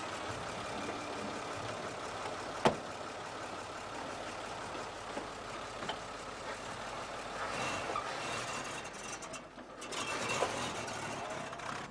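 Vintage motorcar engine running steadily, with one sharp car door slam a few seconds in and the car pulling away in the second half, its engine noise swelling.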